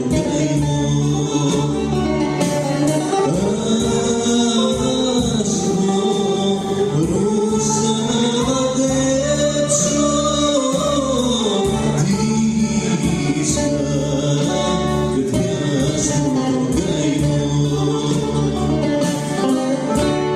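A man singing a song through a handheld microphone over instrumental accompaniment with a regular beat, with a long held note that rises and falls about halfway through. The song ends near the end.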